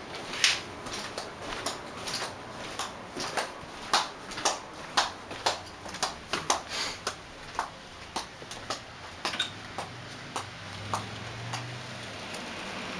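Footsteps, roughly two a second, mixed with the clicks and rustles of a handheld camera being carried.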